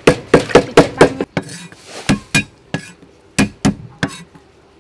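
Cleaver chopping garlic on a thick round wooden chopping block: a quick run of about five sharp chops in the first second, then single chops at uneven gaps.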